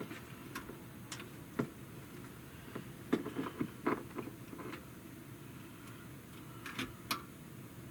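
Multimeter test probes being moved and pressed onto resistor leads in a tube-tester chassis, giving scattered light clicks and taps with a small cluster about three to four seconds in and two more near the end.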